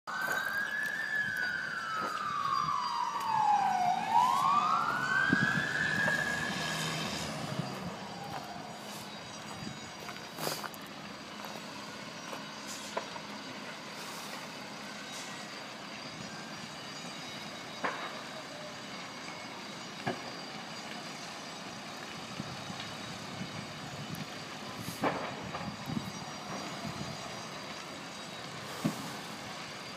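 Emergency vehicle siren wailing, sliding down in pitch and then back up once before fading away after about seven seconds. After that come steady outdoor background noise and a few sharp clicks or knocks.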